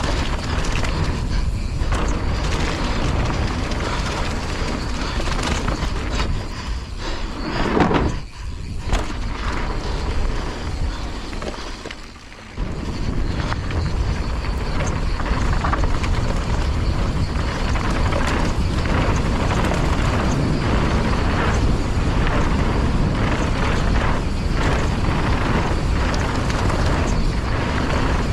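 Wind buffeting a helmet-mounted action-camera microphone, over the rattle and tyre noise of a mountain bike descending a rough downhill trail. It goes quieter for a couple of seconds and comes back suddenly about twelve and a half seconds in.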